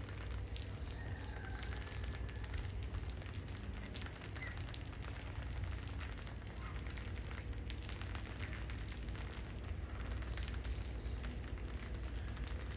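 A crowded heap of field rats scrambling over each other on a tiled floor: a steady crackly patter of claws scratching and scrabbling, with a few short, high squeaks, over a low steady hum.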